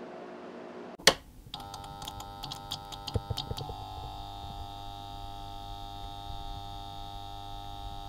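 Electronic logo sting: a steady hiss and hum, then a sudden sharp hit about a second in, a quick flurry of clicks over a synthesizer chord, and a held synthesizer drone.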